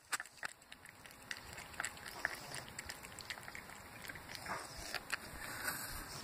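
Cat eating raw chicken wing and egg from a bowl: a run of wet chewing and smacking clicks, with snuffly, congested breathing from a head cold.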